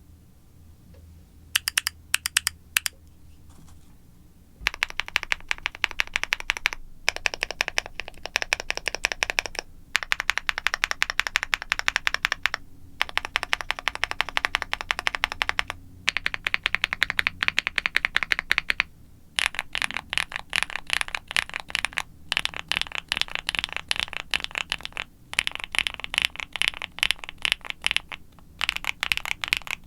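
Typing on a QwertyKeys QK65 aluminium mechanical keyboard with factory-lubed Gateron Smoothie linear switches, a polycarbonate plate, foam and silicone dampening, and GMK doubleshot ABS keycaps. A few keystrokes come about a second and a half in, then fast continuous typing runs on with several short pauses.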